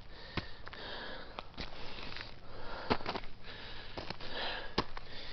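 A person breathing and sniffing close to the microphone, with a few sharp clicks scattered through.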